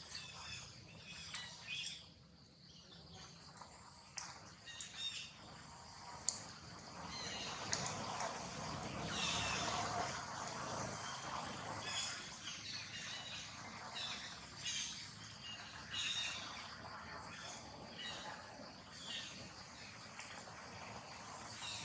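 Birds chirping in short high calls over steady outdoor background noise.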